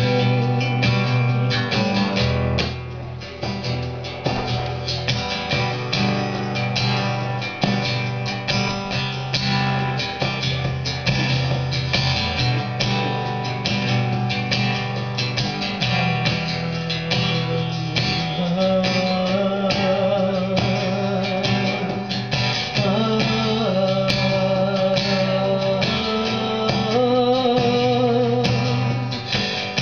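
Acoustic guitar strummed in a steady rhythm, with a singing voice holding long wavering notes over it at times.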